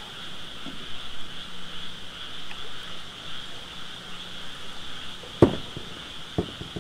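A steady high-pitched animal chorus over light water sloshing, broken by a sharp knock a little past five seconds in and a smaller one about a second later as the small boat's hull bumps on its trailer while being pushed off into floodwater.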